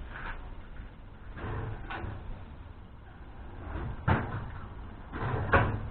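Steel toolbox and trolley parts being handled and fitted together: a series of metal clunks and knocks, with a sharp click about four seconds in and the loudest clunks near the end.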